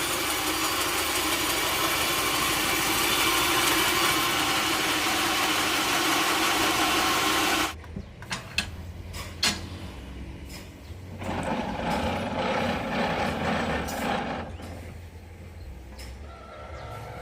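Sawmill machinery running loud and steady, cutting off abruptly about eight seconds in. A low engine hum carries on afterwards with a few sharp knocks.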